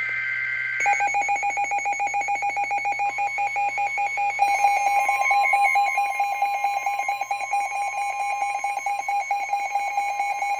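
Emergency Alert System tones: a short warbling SAME data burst ends in the first second, then a loud, rapidly pulsing attention alarm tone begins, with a second steady tone joining about three seconds in. They signal that a new weather warning is about to be read.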